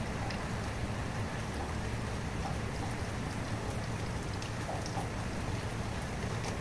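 Steady rain falling, an even hiss with scattered drips ticking on a surface.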